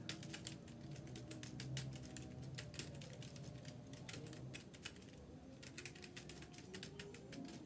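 Typing on a computer keyboard: quick, irregular key clicks, with a short pause about five seconds in.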